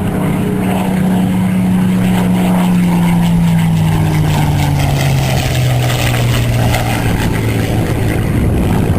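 Piston-engined propeller aircraft flying past, its loud engine drone sliding slowly down in pitch as it goes by.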